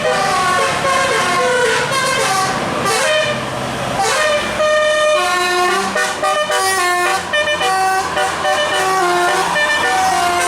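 Bus 'telolet' musical air horn playing a tune, its notes stepping quickly from pitch to pitch.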